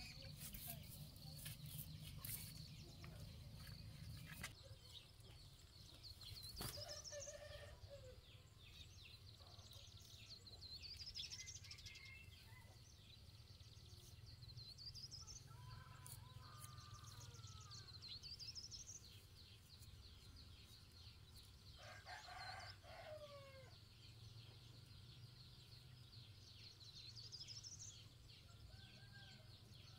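Faint farmyard chickens clucking, with a rooster crowing, and a small bird repeating a short rising chirp every few seconds.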